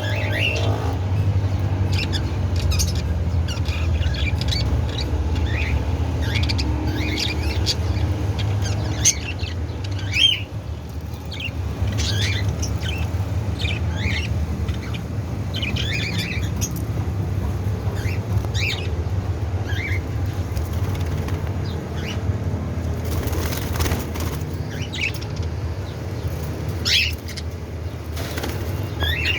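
A flock of budgerigars chirping and squawking in short, scattered calls, with occasional wing flutters, over a steady low rumble.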